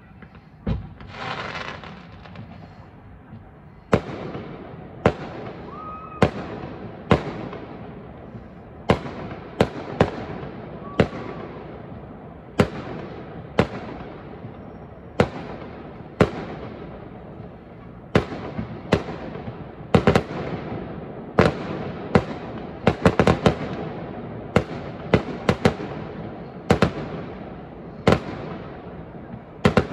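Fireworks display: aerial shells going off in a long run of sharp bangs, about one a second, over a continuous crackle, with a quick cluster of bangs a little past the middle. It opens with a rushing hiss before the bangs begin.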